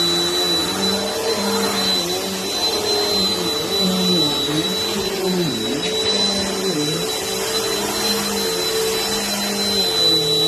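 Vacuum cleaner running steadily with a high whine over its motor hum. The hum's pitch dips and recovers several times in the middle.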